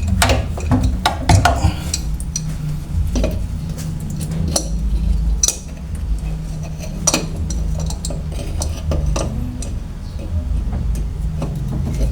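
Irregular metallic clinks and knocks of hand tools and faucet fittings being handled under a kitchen sink, over a steady low hum.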